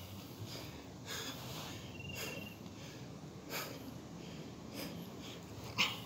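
A man breathing hard under exertion while lifting, sharp exhales about once a second, the sharpest near the end. A brief high chirp sounds about two seconds in.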